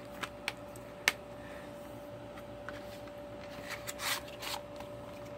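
Plastic Blu-ray case being handled: two light clicks, then a sharp snap about a second in as the case shuts. Near the end come a few seconds of plastic and cardboard rubbing and scraping.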